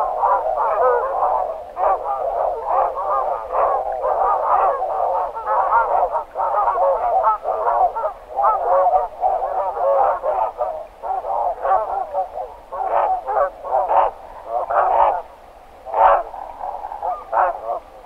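A roosting flock of barnacle geese calling: a dense chorus of many short, overlapping calls that thins to more separate calls, with brief gaps, in the second half.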